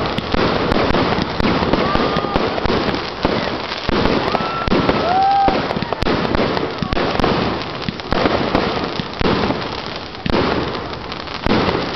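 Fireworks and firecrackers going off in a dense, unbroken run of crackling and popping, with a few short tones rising and falling through it.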